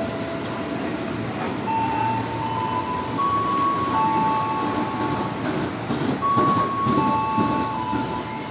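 KRL commuter electric train running slowly into the station platform, with a steady rumble and high squealing tones that hold for a second or so and step between several pitches.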